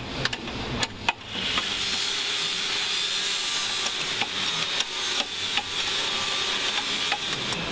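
A few sharp metal clicks, then from about a second and a half in a steady scraping, rubbing noise as the hoist's threaded adjusting bar is unscrewed to widen the hoist.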